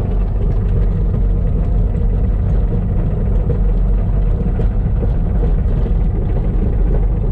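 A heavy diesel engine running steadily at close range, a loud even rumble with no change in pace.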